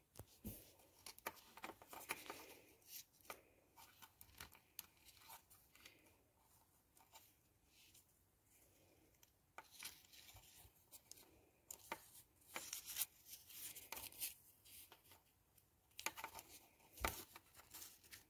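Quiet handling noise: scattered small clicks and brief rustles as fingers grip and turn a plastic LEGO minifigure, with a few sharper clicks in the second half.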